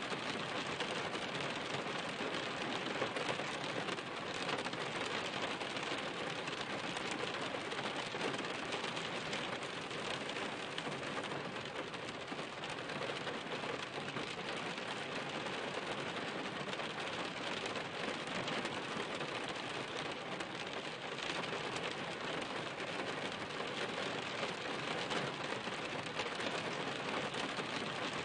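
Steady rain falling: a dense, even wash of many small drop impacts, holding at a constant level.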